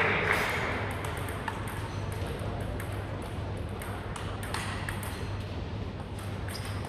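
Table tennis rally: the ball clicking back and forth off the bats and the table in a quick, regular series of sharp ticks.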